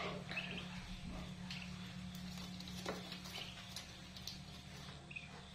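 Newly hatched ducklings pecking at feed in a plastic dish: a scatter of light irregular clicks and taps, with a few short high peeps near the start and again near the end, over a steady low hum.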